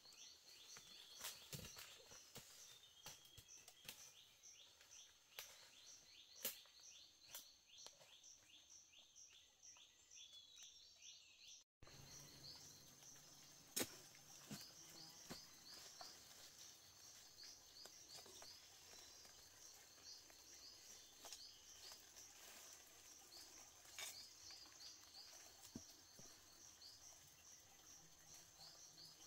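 Faint forest ambience: a high, rapid chirping keeps repeating, with scattered light taps and rustles in dry leaf litter.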